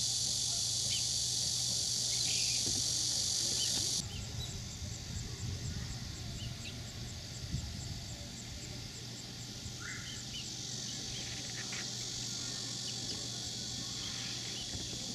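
Steady, high-pitched chorus of insects. About four seconds in it drops abruptly to a softer chorus with a fast, even chirping.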